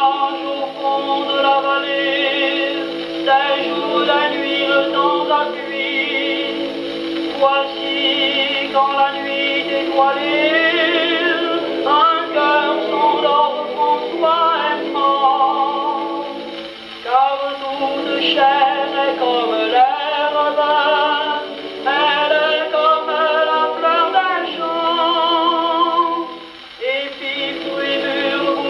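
Mixed male and female voices singing a French chanson with strong vibrato, played from a 78 rpm shellac record on a wind-up acoustic cabinet gramophone. The sound is thin, with no deep bass and no top end.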